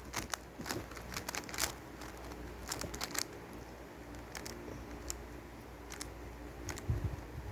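Plastic Rubik's cube being turned by hand: irregular clicking and rattling of the layers as they are twisted, with a soft thump near the end.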